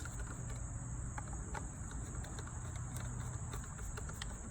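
A few light, scattered clicks and ticks of hand-tightening the carburetor mounting screws on a small gas trimmer, over a steady low hum and a steady high-pitched hiss.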